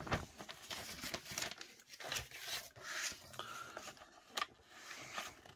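Old, brittle newsprint rustling and crinkling as a leaflet is handled and unfolded, in irregular crackles with a sharper one about four seconds in.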